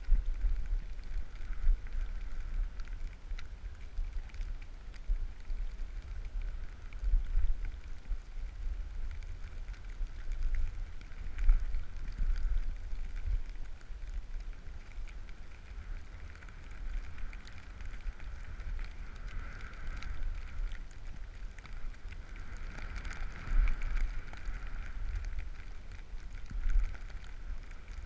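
Wind buffeting the camera microphone during a downhill ski run, a gusty low rumble, over the steady hiss of skis gliding through powder snow.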